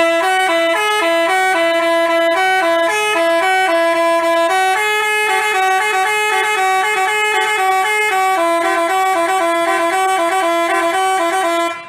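Bus telolet 'basuri' musical horn playing a quick tune of short stepped notes, two pitches sounding together, for about twelve seconds. It starts and cuts off abruptly.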